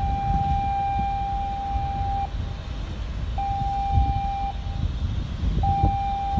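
A steady, high, single-pitched horn sounding in blasts: a long one that ends about two seconds in, then two shorter blasts of about a second each, over a constant low rumble.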